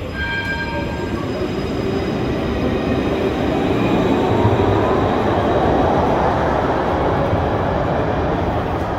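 A tram running through the station: a steady rumble of wheels on the rails that swells to its loudest around the middle, with a faint rising motor whine. A short high ringing sound is heard near the start.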